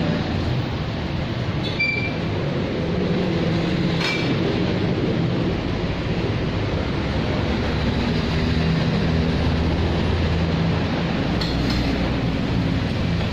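Steady rumble of motor vehicle traffic, with hum that shifts in pitch as vehicles pass, and three light metallic clinks as scooters are handled and one is wheeled out of a row.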